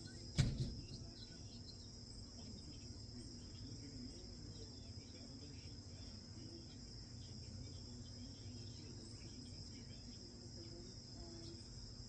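Steady high-pitched insect chirring, with a single sharp knock about half a second in.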